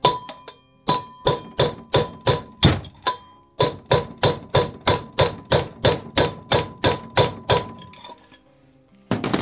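Hammer blows driving out a tight, rusted-in bearing, about four sharp metal strikes a second with a faint ring after each, in two long runs broken by a short pause near the three-second mark.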